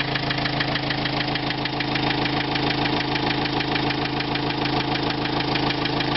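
Renault Trafic's 1.9 dCi four-cylinder turbodiesel idling steadily, with a fast, even knock running through it: the engine knock the van is being recorded for.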